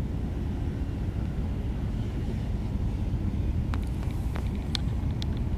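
Steady low outdoor rumble, with a few short, sharp clicks about four to five seconds in.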